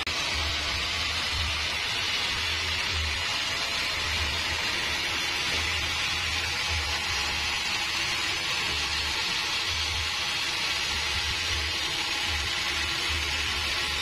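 Homemade band sawmill running, its band blade sawing lengthwise through a large log with a steady hiss.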